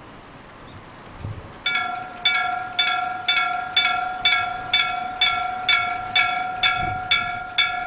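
Old electric-bell level crossing alarm starting up about a second and a half in: the bell mounted on the crossing post is struck directly by its hammer about twice a second, a loud "kan! kan! kan!" clang that rings on between strokes. The alarm sounds for an approaching train.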